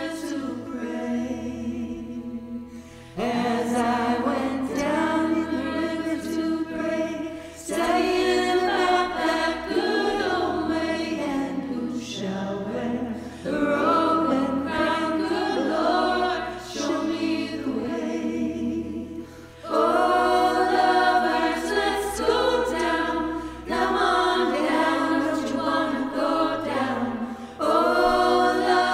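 Three women's voices singing a cappella in close harmony, in sung phrases of several seconds with short pauses between them.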